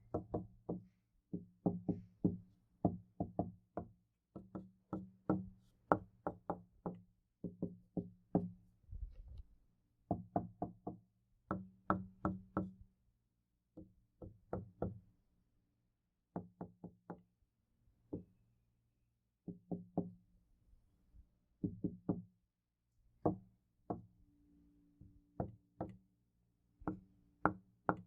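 Knuckles knocking on a wooden door in quick groups of two to five raps, with short pauses between the groups, each rap ringing with a low, hollow body. Recorded binaurally for a 3D effect.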